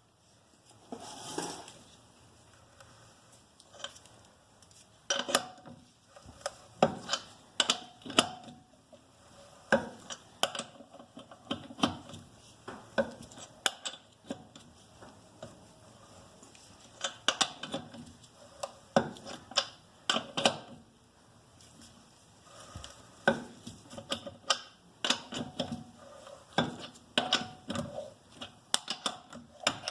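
Lug wrench and socket clinking and clanking against the lug nuts and wheel as the front wheel's lug nuts are loosened. The clicks are irregular, often several in quick succession.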